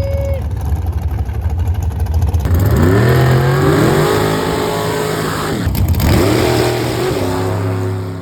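Super Comp dragster launching and accelerating hard down the drag strip. A low rumble gives way about two and a half seconds in to a loud engine note that climbs in pitch, drops once at the gear change and climbs again, then fades as the car pulls away.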